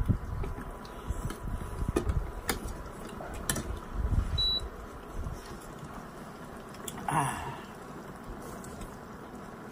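Eating noises from a bowl of spicy instant noodles: a few sharp clicks of chopsticks or utensils in the first few seconds and a short slurp about seven seconds in, over low uneven rumbling and a brief high beep near the middle.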